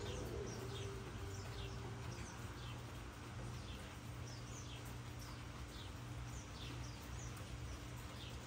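Faint outdoor ambience: birds chirping, short falling chirps scattered throughout, over a low steady hum.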